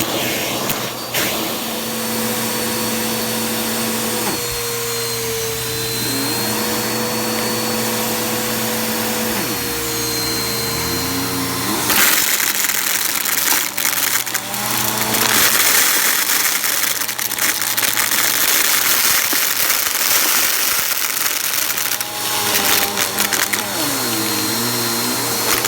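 Vacuum cleaner running, its motor pitch dipping and recovering a couple of times as the load changes. From about halfway it gets louder and noisier, with a rattle of small clicks as crunchy debris is sucked up.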